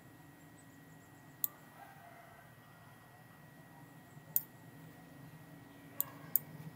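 Four single clicks of a computer mouse, spaced out: one about a second and a half in, one past the middle, and two close together near the end, over a faint steady hum.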